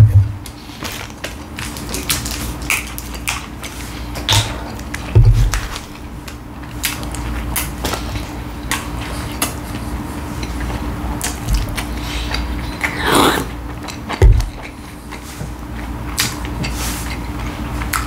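A person eating McDonald's McChicken sandwiches: scattered chewing, biting and crackling clicks, with a couple of low thumps, over a steady low hum.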